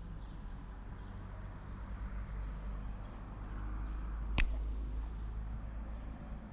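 Outdoor background of low rumble, like wind buffeting the microphone, with a faint hiss that swells a little just past the middle, and a single sharp click about four and a half seconds in.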